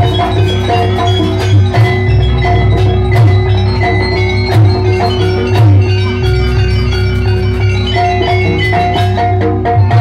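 Loud gamelan music accompanying a jaranan dance: metal-keyed mallet instruments play fast, repeated notes over frequent drum strokes and a heavy low gong-like drone.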